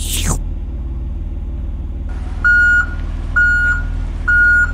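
Cartoon sound effects for an animated toy car: a quick falling whoosh at the start, then three evenly spaced electronic beeps like a vehicle's reversing alarm, over a steady low engine hum.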